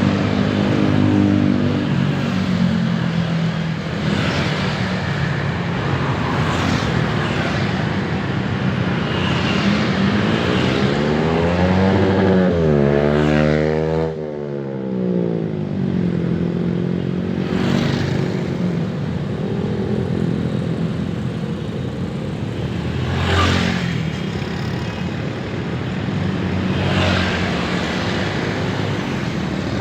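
Busy urban road traffic: a continuous mix of engines and tyre noise from passing vehicles. About halfway through, one vehicle passes close, its engine pitch rising and then falling, and further vehicles swish by near the two-thirds mark.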